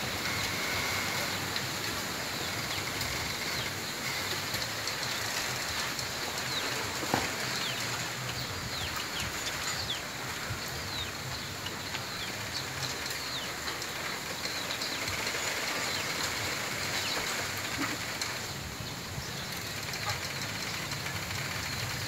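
Wind rustling a bamboo grove, with one sharp crack from the bamboo stems about seven seconds in. Short high bird chirps come now and then in the first half.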